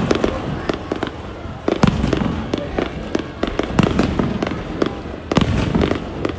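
Aerial fireworks going off in a rapid series of bangs and crackles, with louder booms about two seconds in and again just past five seconds.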